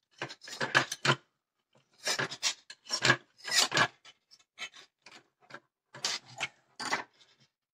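Electrical wires being twisted together by hand inside an opened plastic power-strip housing: irregular scratchy rubbing and scraping in short bursts with pauses, louder in the first half and thinning to small ticks later.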